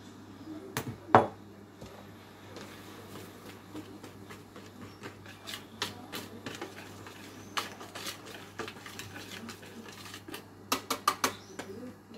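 Kitchen handling sounds around a plastic mixing bowl: a loud knock about a second in, then scattered light clicks and rustling while sugar is worked into the dough starter by hand. Near the end comes a quick run of about five sharp taps as a wire whisk strikes the bowl.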